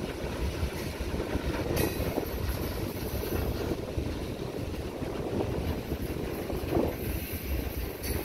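Freight train boxcars rolling across a steel girder bridge: a steady low rumble of wheels on rail, with a sharp click about two seconds in and another near the end.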